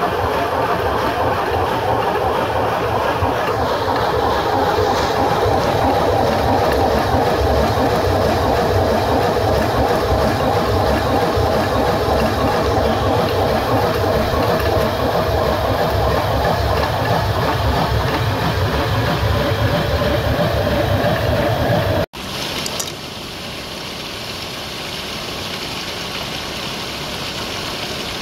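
Traditional water-powered stone flour mill running: the turning millstone and its wooden grain feeder make a loud, steady rumbling clatter. About 22 seconds in it cuts to the quieter rush of a mountain stream.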